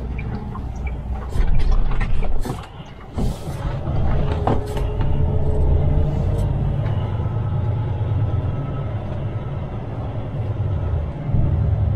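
Semi truck's diesel engine running low and steady, heard from inside the cab while the truck moves slowly. There are sharp clicks in the first few seconds and a short burst of air hiss about three seconds in.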